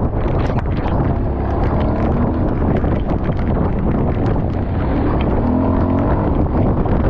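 Kawasaki KLX230's single-cylinder engine running as the bike rides a muddy dirt track, its pitch shifting a little as the throttle changes, under heavy wind rumble on the microphone and scattered small clicks.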